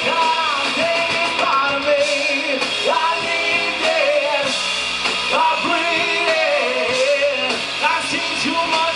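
Live rock band playing, with singing over the full band.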